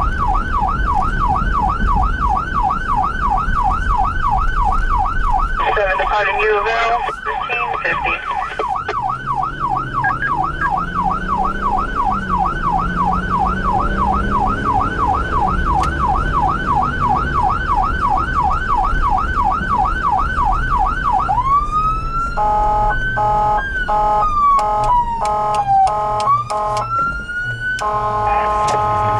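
Emergency vehicle's electronic siren on a rapid yelp, with the vehicle's engine running beneath and a short horn blast about a quarter of the way in. Near three-quarters of the way through the siren changes to rising wails broken up by repeated horn blasts, ending in a long horn blast.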